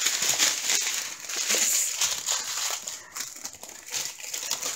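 Plastic packaging crinkling as it is handled: the thin plastic bags of round diamond-painting drills and their wrapping. The crackling is denser at first and eases off for a moment about three seconds in.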